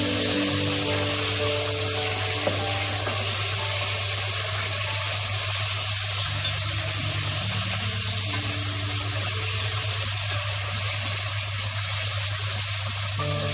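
Lean pork pieces sizzling steadily as they fry in hot oil in a pot, under background music with sustained notes.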